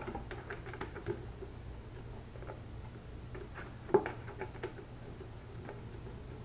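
Faint scratching and light clicks of a hard plastic bucket being handled and worked at with a small hand tool, with one sharper click about four seconds in.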